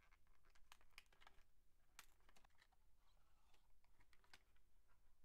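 Faint, irregular clicks and crackles of a clear plastic blister pack being handled and pried open by fingers, with one sharper click about two seconds in.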